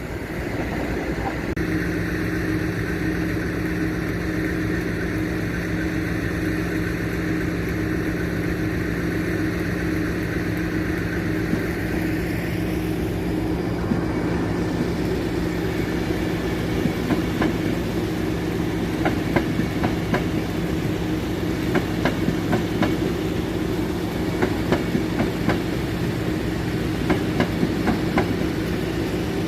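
Train running through the station with a steady low drone. From about halfway, its wheels click over rail joints and pointwork, more and more often toward the end.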